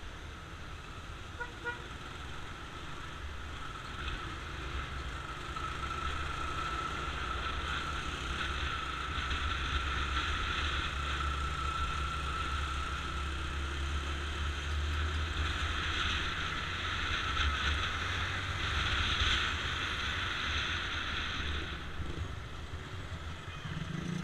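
Motorcycle engine running at low speed through city traffic, mixed with road and traffic noise, heard from a camera mounted on the bike. It grows louder after the first several seconds.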